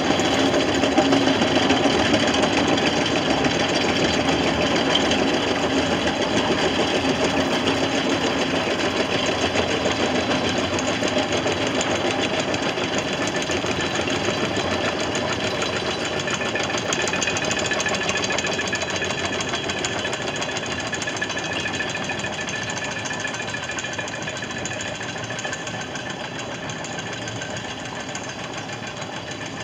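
Riqueval chain-towing tug hauling itself along the chain laid on the canal bed: a steady mechanical clatter of the chain running through its deck winch, slowly fading as the tug moves off.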